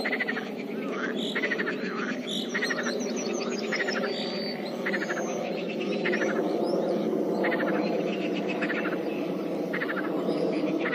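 Pond frog chorus: a dense, steady mass of calling frogs, over which short rattling croaks repeat about once a second. A few bird chirps sound high above it.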